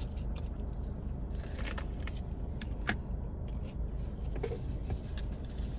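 Car engine idling steadily, heard from inside the cabin as a low rumble, with a few faint clicks of eating over it.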